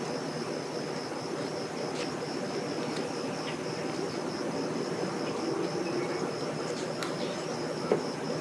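Outdoor ambience: a steady low rumble with an insect's high, rapidly pulsing trill running above it, a few faint chirps, and a single sharp click near the end.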